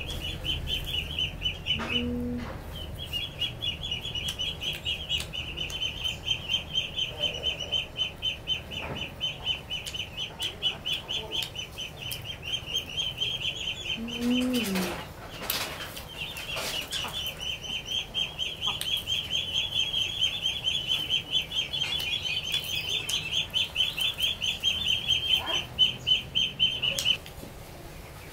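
High, rapidly pulsing insect buzz of the cicada kind, which breaks off for a second or two about halfway and stops abruptly near the end. Two short low vocal sounds come about two and fourteen seconds in, the second falling in pitch.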